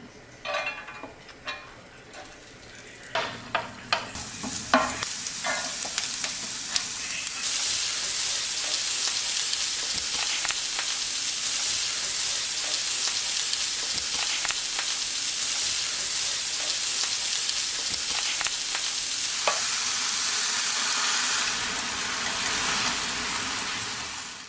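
Food sizzling in a hot frying pan. It starts with a few clacks of a utensil against the pan as the food is stirred, then settles into a loud, steady sizzle that fades out at the end.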